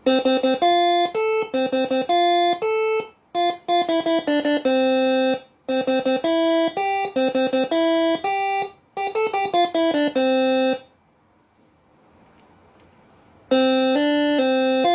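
Moreno MS5 six-trumpet telolet 'basuri' air horn playing a tune of short, sharply cut notes, several trumpets often sounding together. It stops about eleven seconds in and starts another tune a couple of seconds before the end.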